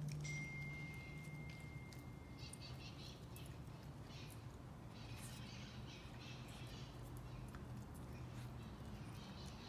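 Puppy's claws clicking irregularly on a hardwood floor, with short soft scuffling and sniffing noises as it noses and paws at a morsel on the floor. A faint low hum runs underneath.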